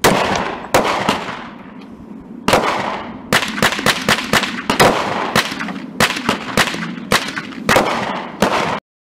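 A Glock 30 pistol firing +P .45 Auto rounds: a string of sharp gunshots, each ringing out. Two shots come near the start, then after a pause a fast run of shots a quarter to half a second apart. The sound cuts off abruptly near the end.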